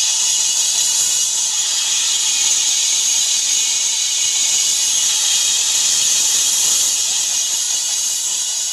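Large concert crowd cheering and applauding between songs, a steady, even roar that eases slightly near the end.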